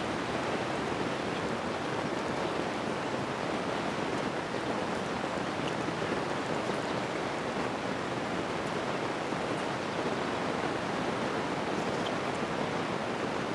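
Steady, even rushing background noise of an open outdoor field, with no clear event standing out.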